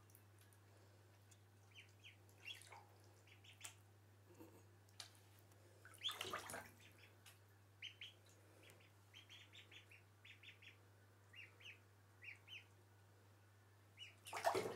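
Ducklings peeping softly, many short, high peeps in scattered runs. A couple of brief louder noises come through about six seconds in and near the end.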